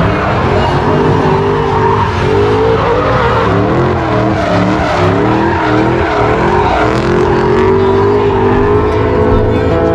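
A drift car's engine revving hard, its pitch rising and falling repeatedly as the throttle is worked, with its tyres skidding as it slides round the arena.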